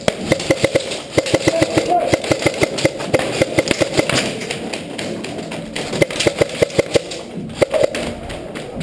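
Airsoft guns firing rapid strings of shots, dense for the first four seconds and then in shorter runs about six to seven seconds in.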